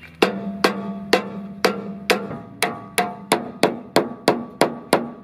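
Hammer blows on the steel cab-tilt hook of a Unimog cab mount, knocking it up into place: about fourteen sharp metallic strikes that ring after each hit and come faster toward the end.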